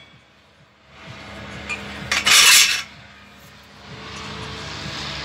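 Steel parts of a homemade paint stand being handled: soft rubbing, then one short, loud metal scrape about two seconds in as the wing-nut clamp on the square steel tube is worked by hand, followed by steadier rubbing noise.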